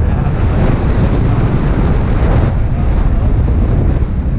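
Steady wind noise on the microphone over the running engine of a Yamaha Aerox 155 scooter, a 155 cc single-cylinder four-stroke, cruising at about 56 km/h.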